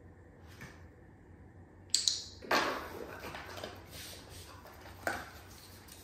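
A dog rummaging with its nose in a cardboard box, rustling and crumpling the packing paper inside as it forages for the food hidden in it. Quiet at first, then a sudden burst of crinkling about two seconds in, with scattered rustles after and another about five seconds in.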